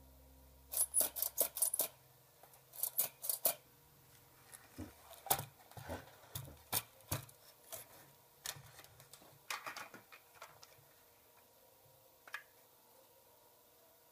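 Handling noise of a small homemade DC-motor hand drill and its wires: a string of sharp clicks and light clatters, closely spaced at first and more spread out later, with one last tick near the end. A low steady hum stops within the first second.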